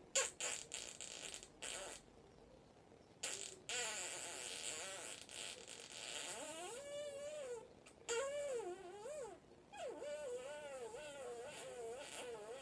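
Kissing smacks and lip noises between a woman and an African grey parrot held beak to lips. From about six seconds in comes a soft, wavering, pitched murmur in short stretches.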